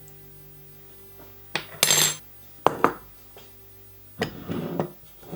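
Metal spoon clinking and scraping against a small ceramic bowl as a sauce is mixed: a noisy scrape and a couple of sharp clinks around the middle, then more scraping near the end. Quiet guitar music sits underneath at the start.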